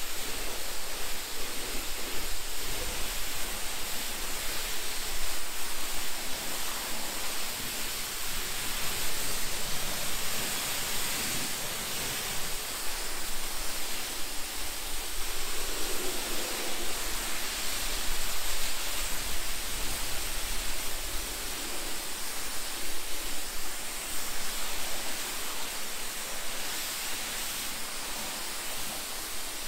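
Pressure washer lance spraying a jet of water onto a car's bodywork, rinsing off the snow-foam pre-wash: a steady hiss of spray.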